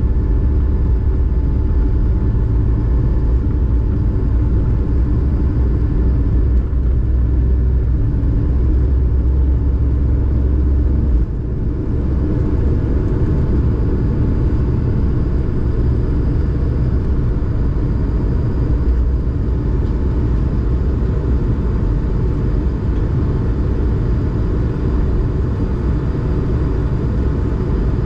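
Cabin noise of an Airbus A220-300 at takeoff: its Pratt & Whitney PW1500G geared turbofans run steadily under a heavy rumble from the wheels on the runway. The rumble stops abruptly about 11 seconds in as the aircraft lifts off, leaving the steady engine and air noise of the climb.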